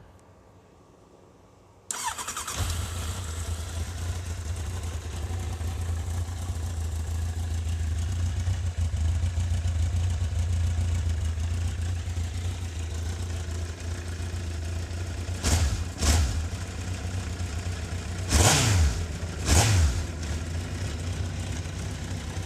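A 2003 Kawasaki Z1000's inline-four on its stock exhaust starts about two seconds in and settles into a steady idle. Near the end it takes two quick throttle blips, then two bigger revs that climb and fall back. On the stock pipes the sound is a bit quiet.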